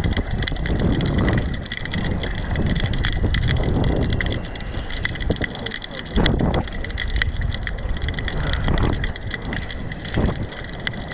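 Wind buffeting the microphone, with a steady stream of small clicks and rattles from a fishing rod and spinning reel being handled.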